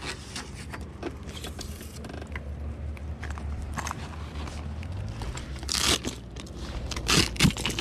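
Scattered small clicks, scrapes and knocks from gear being handled in a kayak, over a steady low rumble, with a louder rushing burst about six seconds in and a few sharper knocks near the end.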